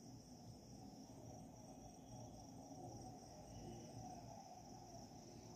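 Near silence: room tone with a faint, steady high-pitched hiss over a low hum.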